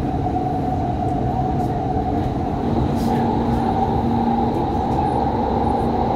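Doha Metro train running at speed, heard from inside the front car: a steady rumble with a humming tone. It enters a tunnel about three seconds in, where it grows slightly louder and a lower hum joins.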